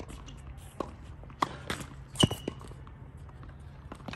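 A tennis rally on a hard court: a series of sharp pops from the ball hitting racket strings and bouncing off the court, the loudest about two seconds in. A brief high squeak comes right after the loudest pop.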